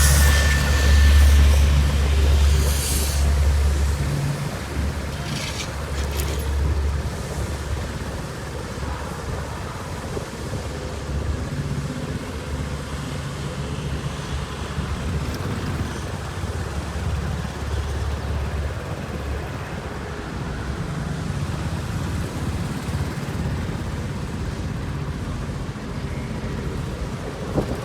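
Engines of heavy asphalt-paving machinery running with a deep low hum. It is loudest for the first few seconds, then eases to a steadier, quieter rumble.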